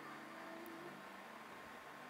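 Faint steady hiss under quiet background music of soft held notes.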